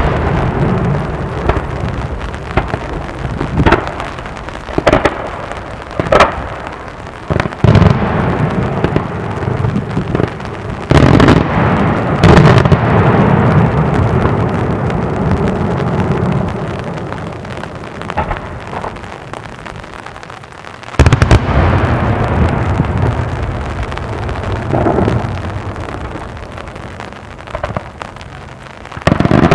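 Daytime fireworks: aerial shells bursting overhead with loud bangs every second or few, over a continuous rumble and crackle of smaller reports. The loudest bursts come about eleven to twelve seconds in, and a fresh loud barrage starts about twenty-one seconds in.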